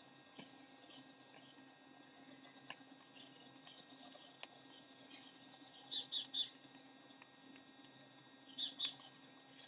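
A bird chirping in quick groups of two or three short high notes, about six seconds in and again near the end, over faint scattered clicks and low room hum.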